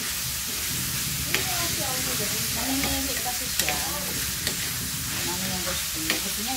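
Diced pork sizzling in hot oil in a frying pan as it is stirred with a spatula, the spatula striking the pan with a few sharp clicks.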